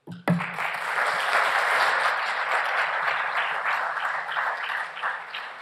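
Audience applauding, beginning right away and thinning out near the end.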